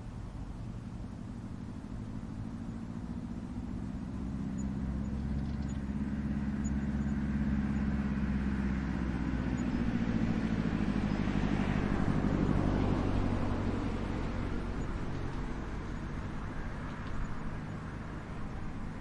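A motor vehicle passing by: a low engine rumble that grows louder over several seconds, peaks just past the middle, then fades away with its pitch dropping slightly.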